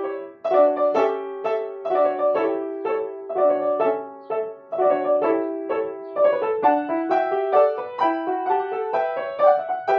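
Upright piano played solo with both hands: a melody over lower accompanying notes, struck at an even, steady pace.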